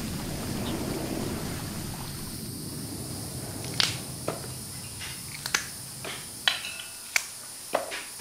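A steady outdoor hiss for the first few seconds, then a run of crisp, irregular snaps as green vegetable stalks are broken by hand, the pieces dropping into a metal pot.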